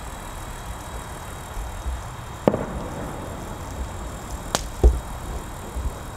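Steady outdoor background rumble and hiss, broken by two sharp clicks about two seconds apart, the second followed by a low thump.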